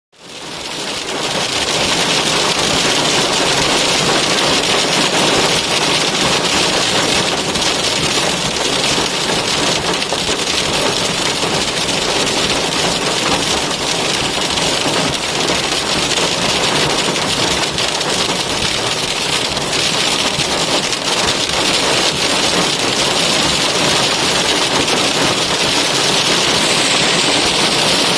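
Heavy hail pelting a car, a dense, steady rattle of countless small impacts.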